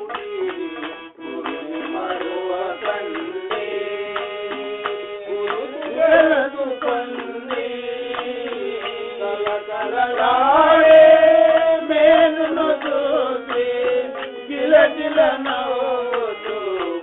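Telugu devotional bhajan music: tabla playing a steady rhythm under a sliding melody line, which swells loudest around the middle.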